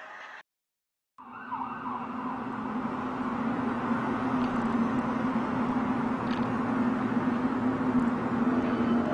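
A steady droning hum, a low tone under a wider wavering drone, slowly growing louder; it begins after the sound cuts out for under a second near the start. It is an unexplained hum of the kind recorded as strange sounds from the sky.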